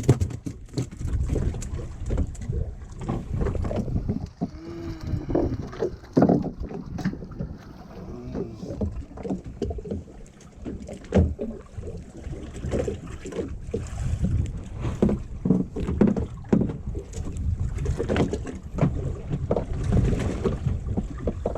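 Wind buffeting the microphone aboard a small fishing boat at sea, with water slapping the hull and scattered knocks throughout.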